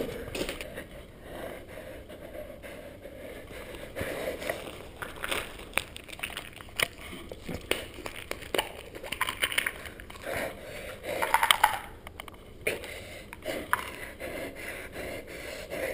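Handling noise close to the microphone: footsteps on a gritty concrete floor and scattered clicks and scrapes. Then a plastic pill bottle is opened and shaken, with short rattles about nine and again about eleven seconds in.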